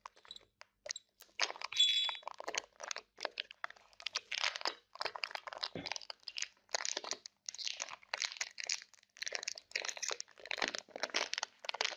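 Close-miked crunching of chocolate being bitten and chewed, a dense crackle that comes in bursts about once a second.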